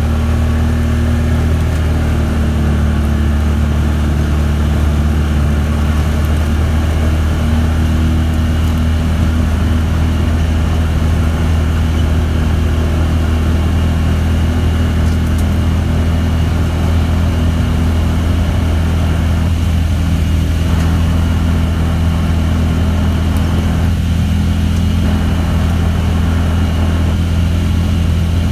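Vehicle engine and tyres droning steadily with a deep, even hum, heard from inside the cab while driving along a dirt road.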